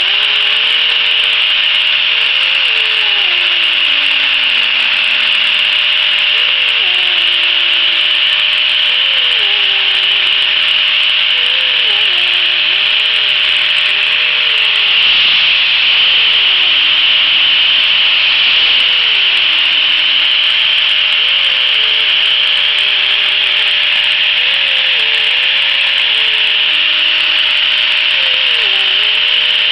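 Angle grinder with an abrasive disc grinding a purpleheart wood handle: a continuous grinding hiss over a steady motor whine, with a lower tone dipping and wavering throughout.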